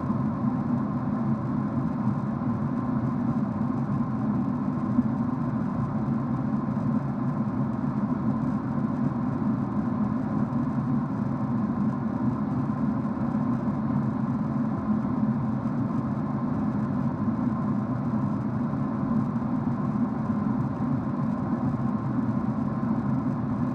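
Steady cabin noise of a jet airliner in cruise: a constant engine and airflow drone heard inside the cabin, with a thin steady tone above it.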